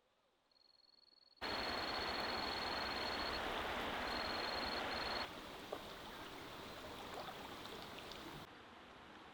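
Running water of a forest stream, a steady rush that starts abruptly about a second and a half in and drops to a quieter wash about four seconds later, with a few faint clicks. A thin high steady tone, broken by short gaps, sounds over the first half.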